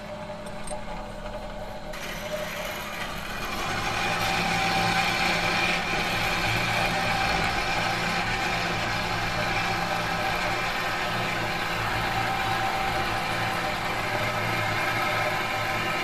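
A metal machine humming: a steady drone of several held tones over a whirring hiss. It swells over the first few seconds, with the hiss coming in about two seconds in, then holds steady.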